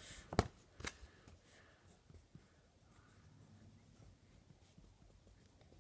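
A few sharp clicks in the first second as a felt-tip marker is handled, then faint writing with the marker on paper.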